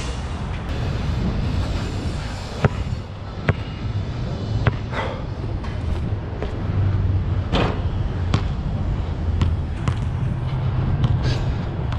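Nike True Grip basketball bouncing on an outdoor asphalt court: a series of separate sharp bounces at irregular spacing, not a steady dribble. Under them runs a steady low rumble of city traffic.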